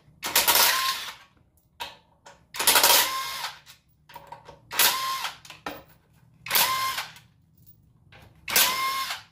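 Cordless power driver spinning a 10 mm socket in five short runs of about a second each, backing out the crankcase cover bolts of a Predator 212 engine one after another.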